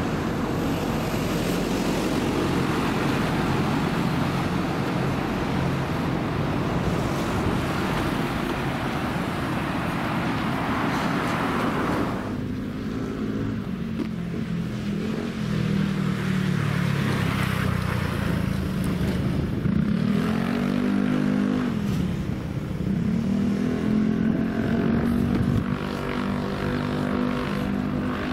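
Road traffic: a steady rush of passing vehicles, then from about halfway a nearby motor vehicle's engine running, its pitch dipping and rising a few times as it slows and speeds up.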